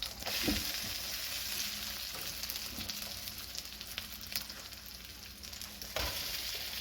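Vegetable batter frying in butter in a pan, a steady sizzle, with a low knock about half a second in and another about six seconds in.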